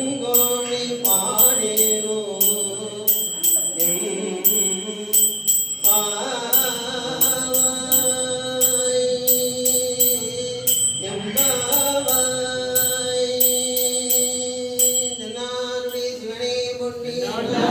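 A male oduvar singing a Tamil Saiva hymn in long held notes, keeping time on small hand cymbals (talam) struck a few times a second with a bright ring. The cymbals and the singing stop near the end.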